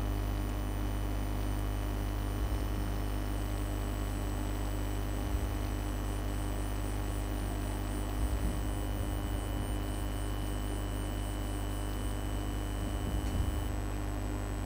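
Steady electrical mains hum on the recording, with a few faint low bumps scattered through it.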